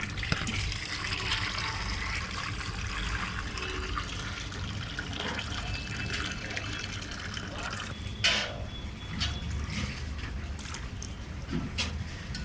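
Water pouring and splashing, with a few sharp knocks, the loudest about eight seconds in.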